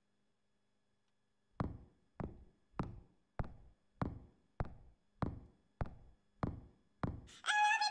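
After a moment of silence, ten evenly spaced percussive hits of a song's break, about one every 0.6 s, each dying away quickly; music with singing comes in near the end.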